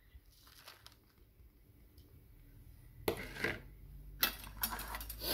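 A plate scraping and clinking and a plastic bag rustling as chopped rosemary is tipped into a bag of meat and onion. It is faint at first, then a few short clatters and rustles come from about three seconds in.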